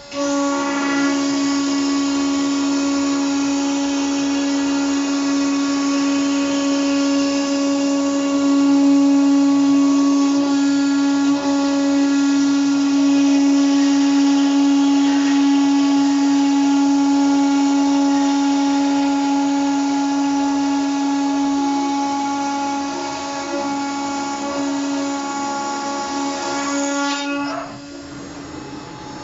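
CNC router spindle running at speed while its bit mills a clamped board: a steady high whine with an even cutting hiss that starts abruptly and falls away about 27 seconds in.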